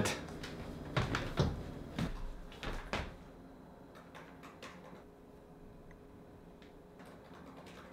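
A few soft knocks and clicks in the first three seconds, then quiet room tone.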